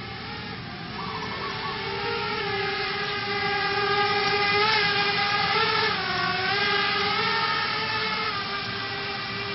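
Racing quadcopter's four Emax 2205 2300 KV brushless motors and three-blade 5-inch props whining in flight, the pitch dipping and rising with the throttle. It is loudest about four to five seconds in.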